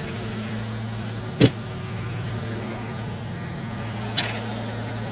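Tractor engine running steadily, driving the homemade circular sawmill through its PTO, with a sharp knock about a second and a half in and a lighter knock near the end.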